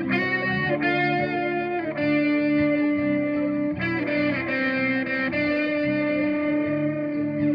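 Distorted electric guitar played through a pedal chain into a FoxGear Plex55 pedal amp: long, sustained notes that change every second or two over a looped part.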